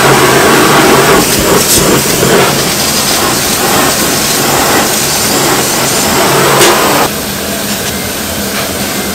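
Handheld butane blowtorch searing marinated pork bulgogi on a wire grill rack: a loud, steady rushing hiss of torch flame with flare-ups of fire. The torch stops suddenly about seven seconds in, leaving a lower steady hum.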